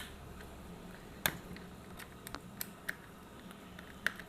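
Faint, scattered light clicks and taps of hands handling a toy RC car's plastic remote controller at its battery compartment.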